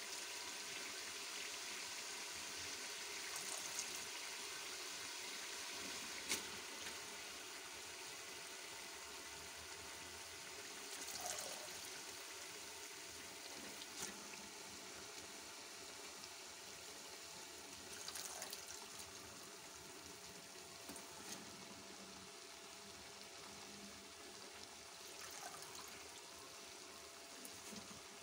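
Meat and masala sizzling in hot ghee and oil in a pot, a steady hiss that slowly eases off as fresh fenugreek (methi) leaves go in, with a few sharp clicks.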